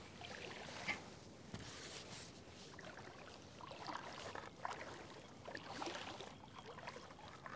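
Shallow lake water swishing and sloshing around a person's legs as he wades, faint and irregular, with one sharp click about a second in.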